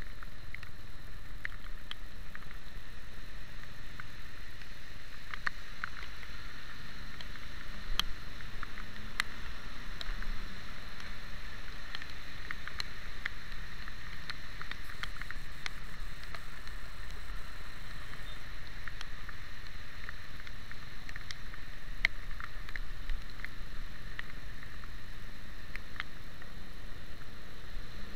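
Motorcycle riding through traffic in the rain: a steady low rumble and wet-road noise. Scattered small sharp ticks come from raindrops striking the camera.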